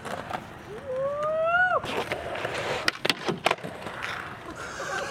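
Skateboard wheels rolling on pavement with several sharp clacks of the board, a cluster of them around three seconds in. A person gives a rising vocal call about a second in.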